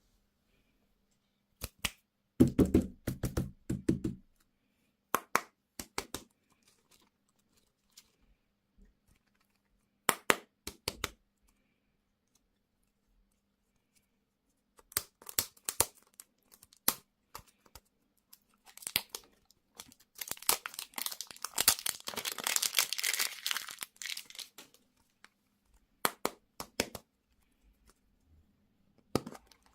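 Plastic candy and toy packaging being torn open and crinkled by hand. Scattered sharp crackles are heard, with a heavier burst of handling noise a couple of seconds in and a long stretch of dense crinkling past the middle.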